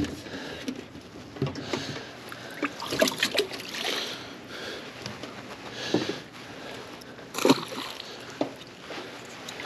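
Water sloshing and splashing with scattered knocks and clatter against a small fishing boat's hull, as bass are handled in the livewell while a smaller fish is culled. The loudest knock comes about seven and a half seconds in.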